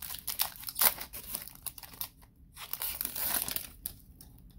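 Foil wrapper of a Panini Playoff football card pack crinkling and tearing as it is ripped open, in short sharp crackles. A brief pause comes about two seconds in, then a second stretch of crinkling before it falls quiet near the end.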